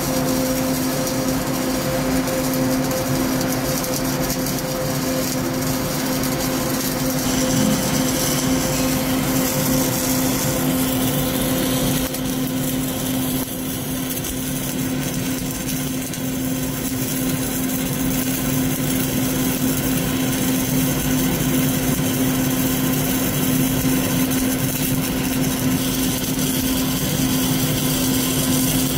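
Flux-cored arc welding (FCAW) with CO2 shielding gas on a vertical 3G joint: a steady sizzling arc, with a steady low hum underneath and a brief drop in level about halfway through.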